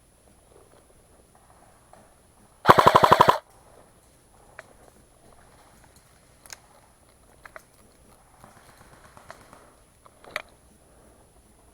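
Airsoft gun firing one short full-auto burst of under a second, about three seconds in, followed by faint clicks and rustling.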